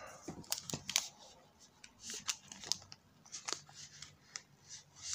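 Thin plastic protective sleeve crinkling and rustling as it is slid off a new smartphone, with irregular small clicks and crackles while the phone is handled.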